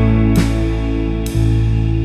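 Background music, guitar-led, with chords struck about once a second over a steady bass.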